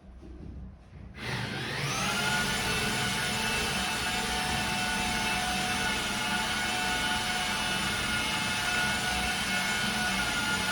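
Electric power tool from an air-conditioner installation: a low rumble, then about a second in its motor spins up with a rising whine and runs on steadily and loudly.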